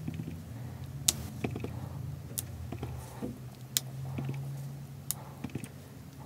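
Clear acrylic stamp block tapping on an ink pad and on cardstock while the stamp is inked and pressed down: sharp light clicks about every second and a bit, with softer taps between. A steady low hum runs under them.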